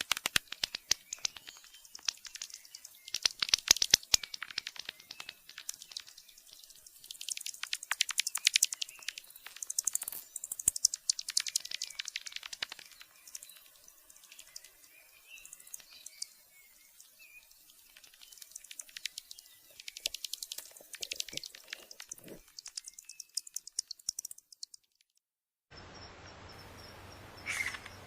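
Bats chittering: repeated bursts of rapid, high clicks and squeaks, each lasting a second or two. About 25 seconds in, the sound cuts out for a moment and a different bat recording with a steady hiss begins, with a few squeaks near the end.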